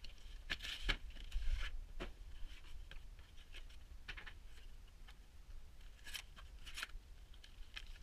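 Graphics card packaging being handled and opened: a series of short cardboard scrapes and taps as the box comes out of its sleeve and the lid is lifted, with plastic wrap rustling.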